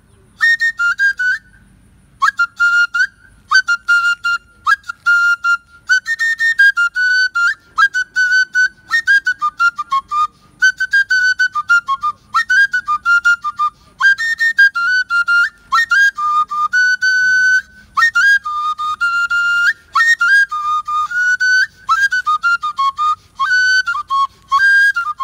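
Igbo oja, a small carved wooden flute, played solo. It plays short phrases of high, whistle-like notes that step and slide between pitches, with brief breaks between phrases.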